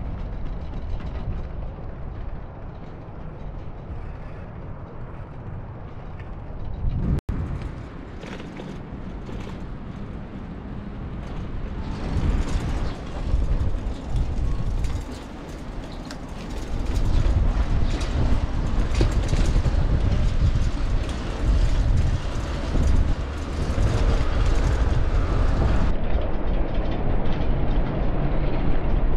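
Street ambience of road traffic on a wide city road: a steady noisy hum with a low rumble that grows louder in the second half.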